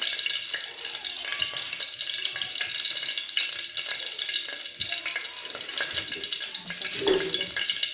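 Desi ghee heating in a saucepan, sizzling with a steady crackle of many fine ticks. The ghee is reaching frying heat.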